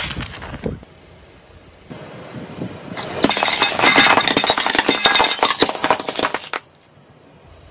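Car tyre rolling onto a row of ceramic plates, cracking and shattering them: a dense run of crackling, clinking breakage that starts about three seconds in and lasts about three seconds. A brief crushing sound fades out at the very start.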